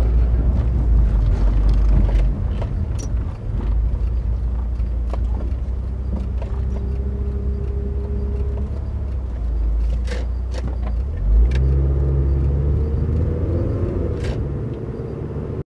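Mitsubishi Lancer Evolution driving on a disused road: a steady low engine and road rumble with scattered sharp clicks and knocks. The engine note changes and picks up about eleven seconds in.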